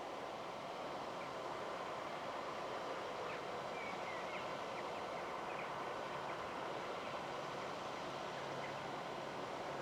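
Fendt 720 tractor running steadily under load while ploughing, with a few faint bird chirps about three to five seconds in.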